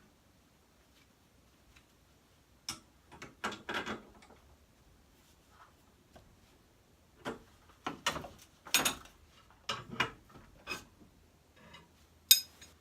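Irregular metal clicks and knocks of hand tools working on garage door torsion spring hardware, some in quick little clusters. The sharpest knock, near the end, rings briefly.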